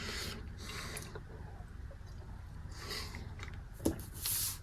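Faint eating sounds as a mouthful of rehydrated chicken and rice is chewed, with a small click near the four-second mark and a short hiss just after.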